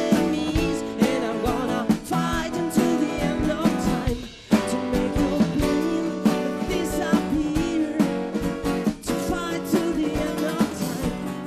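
Live rock band music: guitar and drum kit with singing. The music drops out briefly about four seconds in, then carries on.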